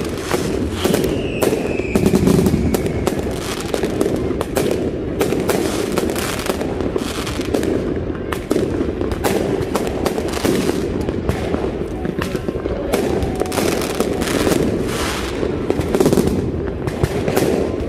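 Fireworks going off in a continuous barrage: a rapid, uneven run of bangs and crackles, with a brief falling whistle about a second in.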